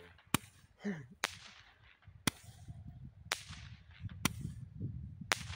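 Roman candle firing shot after shot, about once a second. Each shot is a sharp crack followed by a short fading hiss.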